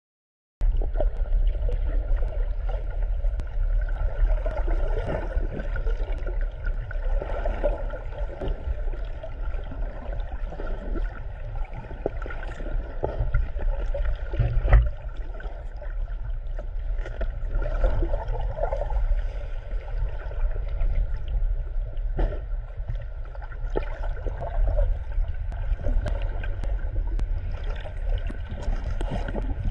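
Muffled underwater sound from a camera in its housing: a steady low rumble of water movement with gurgling, starting abruptly just under a second in. A single louder knock comes about halfway through.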